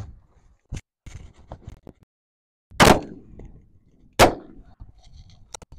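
Stevens 555 20-gauge over-and-under shotgun fired twice, about a second and a half apart, each shot with a short ringing tail. A few light clicks come before the shots and a sharp click near the end.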